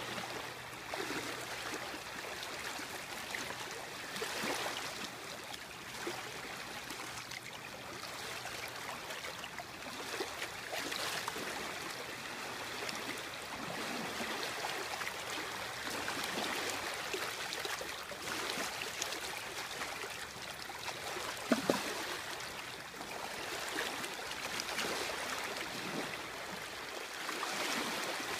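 Small river waves lapping and splashing at the water's edge, an irregular watery wash with no letup, with a couple of brief sharp knocks about three quarters of the way through.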